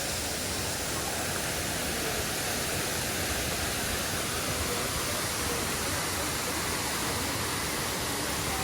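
Waterfall pouring into a pool: a steady, even rush of water.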